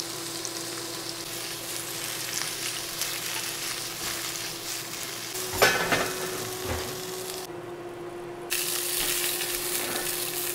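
Parboiled baby potatoes sizzling as they pan-fry in olive oil, over a steady low hum. A sharp clatter comes about halfway. Shortly after, the sizzle cuts out for about a second, then returns louder.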